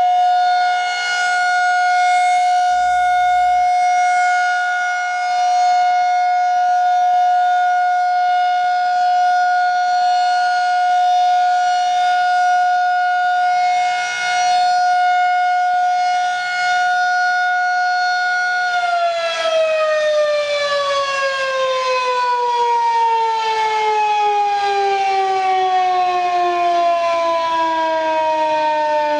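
Federal Signal 2001-SRN outdoor warning siren sounding a steady, loud tone during a test, then, about 19 seconds in, winding down with its pitch falling steadily.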